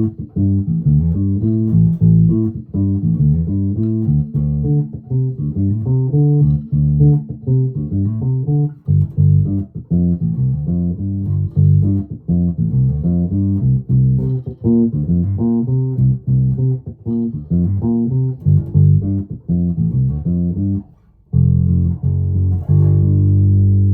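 1996 Alembic Epic active four-string bass played through its neck pickup with the treble cut: a steady run of quick plucked notes with a very good warm tone. About 21 seconds in the playing breaks off briefly, then a few held notes ring out.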